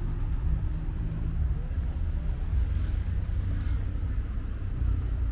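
Steady low rumble of street traffic from the road alongside, with faint voices of passers-by.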